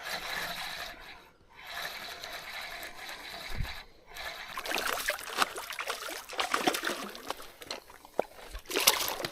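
Water splashing and trickling as a hooked fish is reeled in and thrashes at the surface, the splashes growing more frequent and uneven in the second half.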